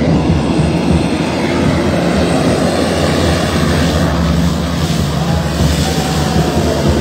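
Twin-engine turboprop plane rolling along the runway after landing, its engines and propellers running with a steady drone and rumble that grows hissier as it passes close by, about four to six seconds in.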